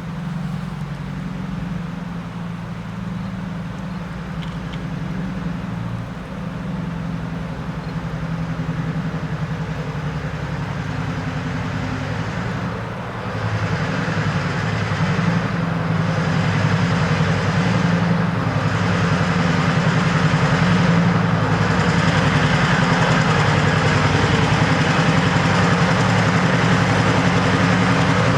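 EMD diesel engine of a Class M6 locomotive running at heavy throttle: a steady low drone that grows louder about halfway through. A hiss above it fades and returns every two to three seconds.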